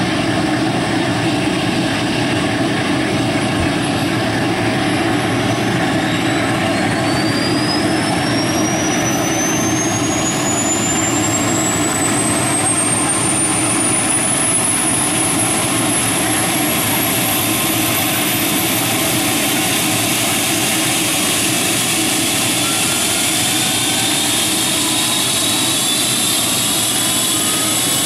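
Eurocopter EC135 helicopter turbine spooling up: a steady rushing engine noise with a high whine that climbs over several seconds and then levels off. Near the end a second, fainter whine begins to rise.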